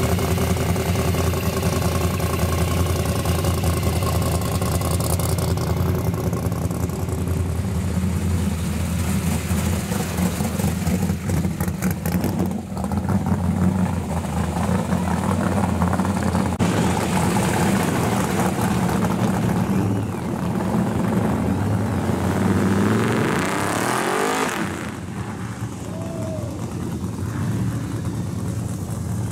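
Pro street muscle-car engines running through loud exhausts as the cars crawl past. About three quarters of the way through, one revs up in a rising sweep and pulls away, and the sound then drops off.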